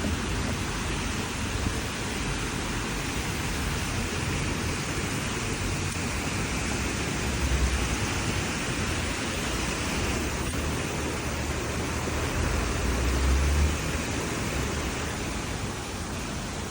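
Everyday outdoor ambience heard from a window: a steady hiss, with a low rumble swelling twice, briefly about seven seconds in and longer around twelve to fourteen seconds.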